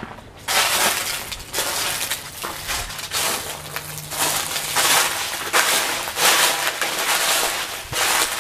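Footsteps crunching through a thick layer of dry fallen leaves, one loud crunch after another, starting about half a second in.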